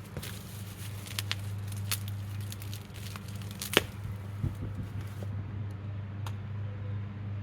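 Packing tape and cardboard being pulled and torn as a mailed package is worked open, with scattered sharp snaps and crinkles; the loudest snap comes a little under four seconds in.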